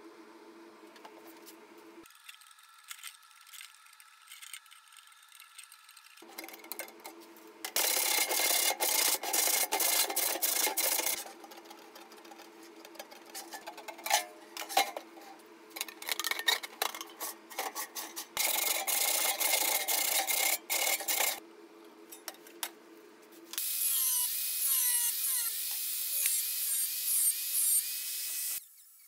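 Sheet-metal cutting: tin snips shearing through a steel can lid in loud, crunchy bursts with scattered clicks, then near the end an angle grinder cutting a disc out of thin sheet steel for several seconds before it stops abruptly.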